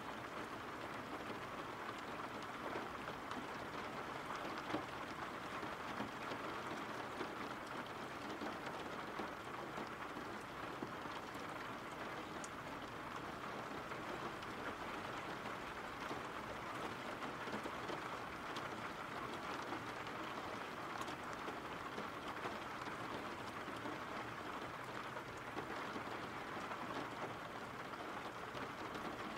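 Steady rainfall, an even wash of rain noise that holds at one level throughout.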